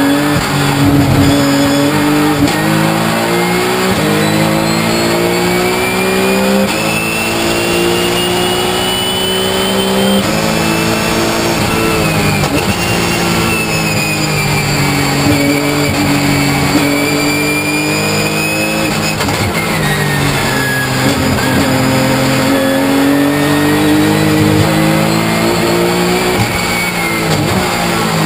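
Porsche 997 GT3 Cup race car's flat-six engine heard from inside the cockpit at racing speed, its pitch climbing hard through the revs and dropping back at each upshift, with lifts and downshifts for the corners. A high whine rises and falls with the car's speed over the engine note.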